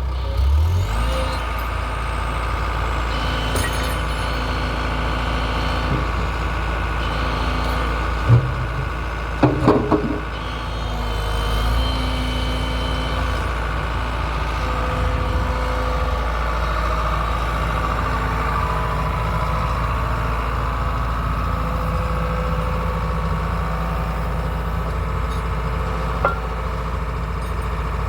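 Excavator engine running steadily, with a few sharp clanks about a third of the way in.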